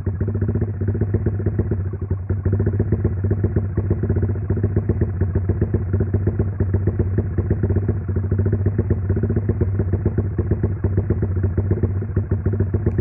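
Motorcycle engine on a Juken 5 ECU tune, idling hot through a loud exhaust with a rapid, steady pulse of firing strokes.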